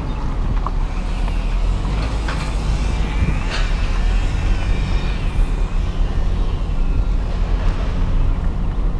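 Steady road noise of a moving car heard from inside the car: a continuous low rumble with an even hiss above it.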